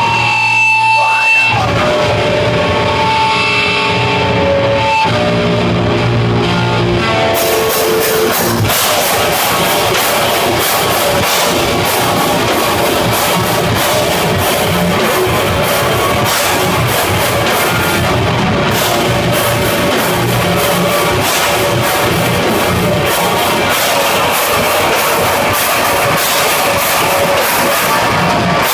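Heavy metal band playing live through a club PA: held electric guitar notes ring out, then about seven seconds in the full band comes in with fast, dense drumming, cymbals and distorted guitars.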